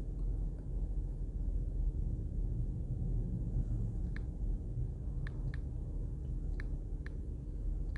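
Steady low background rumble with five short, sharp ticks in the second half, in time with digits being tapped into a phone's number keypad.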